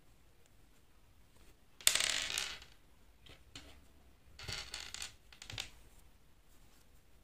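Small beads clinking and rattling as they are handled: one sharp clatter about two seconds in, then a cluster of lighter clicks and rattles a couple of seconds later.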